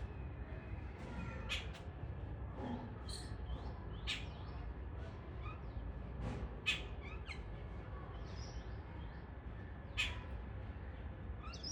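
Crows cawing now and then, with other birds chirping, over a low steady rumble.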